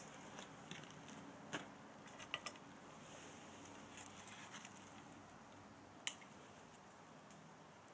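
Faint, scattered clicks and snaps from a small cedar-kindling fire on top of a Swedish torch log while thin dry splints are pushed into it by hand. A sharper click comes about a second and a half in, two close together near two and a half seconds, and one more about six seconds in.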